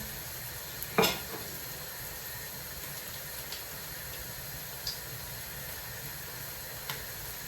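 Syrniki (cottage cheese pancakes) sizzling steadily as they fry in a pan. There is one sharp clatter of a utensil against the pan about a second in, and a few light taps later.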